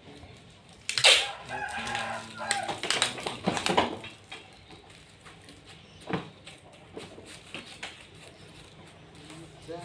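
A loud, drawn-out animal call lasting about three seconds, starting about a second in, followed a few seconds later by a few sharp clicks.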